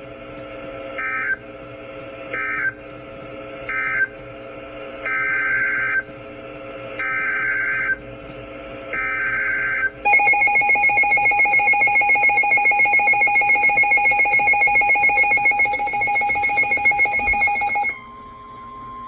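Emergency Alert System tones: three short data bursts, then three one-second bursts of the warbling SAME header data, followed by about eight seconds of the steady two-tone EAS attention signal. Near the end the two-tone signal gives way to a single steady tone.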